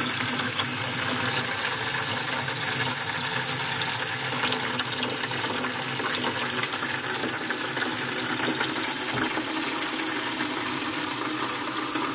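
Water running steadily from an open stainless supply line into a plastic bucket: the hot and cold lines being flushed out before the faucet is connected.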